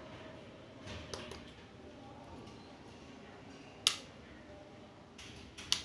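Button clicks on a light bar's handheld control box: a few faint clicks about a second in, then a sharp loud click near four seconds and another near the end, over a low hiss.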